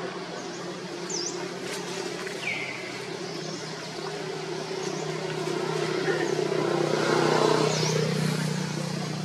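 A motor vehicle's engine running with a steady hum, growing louder to a peak about seven seconds in and then easing off. A few short bird chirps sound over it.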